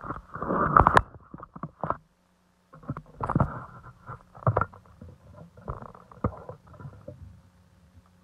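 Muffled knocks, clicks and rustling of a phone being handled and repositioned while it films, over a faint steady low hum. The sound cuts out for a moment about two seconds in.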